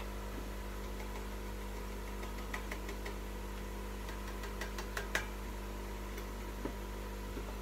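Steady hum of an aquarium air pump driving an airstone, with a few light clicks and taps in the middle.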